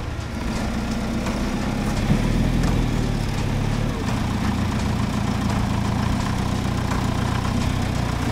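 Jeep rock crawler's engine running at low, steady revs as it crawls over boulders, growing a little louder about half a second in.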